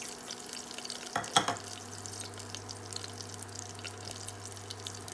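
Whole spices (cumin, black peppercorns, black cardamom) and dried red chillies sizzling and crackling in hot oil in an aluminium pressure cooker. A couple of sharp clicks come about a second in, and a low steady hum starts just after.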